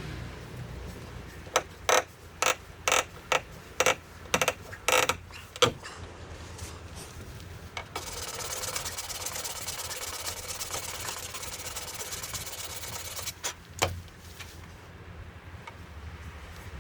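Hand-tool work on wooden railing parts: a quick run of about a dozen sharp clicks and knocks, then about five seconds of steady mechanical rasping that stops suddenly, followed by a couple more clicks.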